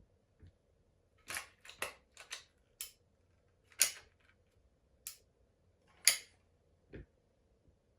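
Sharp clicks and snaps at irregular intervals, about eight in all, the loudest about four and six seconds in: hand work with tools or hard plastic parts.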